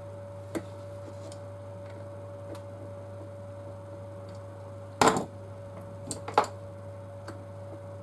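Small clicks and taps of tiny DJI Mavic gimbal parts being handled and worked apart on a tabletop. A sharper knock comes about five seconds in and a couple more clicks a second later, over a steady low hum.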